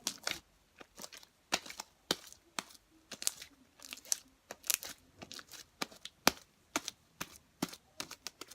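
Thick homemade slime being stretched and worked by hand, giving irregular sticky crackles and snaps about two a second.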